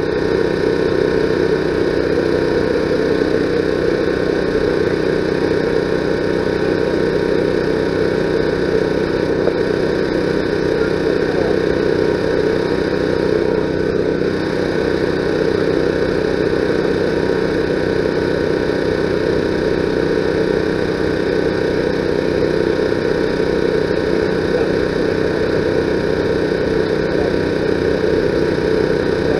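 A steady, unvarying engine hum.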